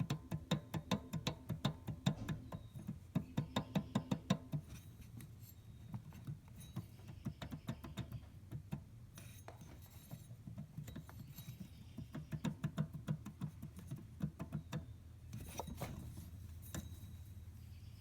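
Engine belt tensioner pulley making a rapid, rhythmic chirping, several chirps a second, over a steady low engine hum. The chirping is strongest for the first few seconds, fades, returns for a couple of seconds later on, and ends in a few scattered clicks.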